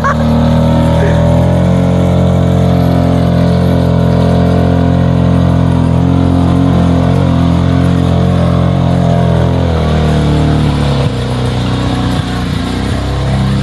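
A four-wheeler's engine held at high revs under load, its wheels spinning, running steadily and then easing off about ten seconds in.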